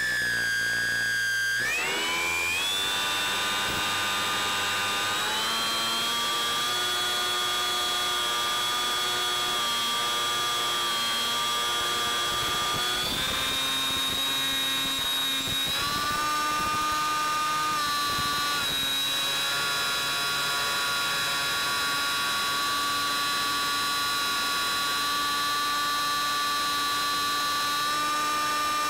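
Brushless electric motor and pusher propeller of a Bixler 3 RC plane whining steadily in flight, its pitch dipping and climbing about two seconds in, then stepping up and down several times with throttle changes.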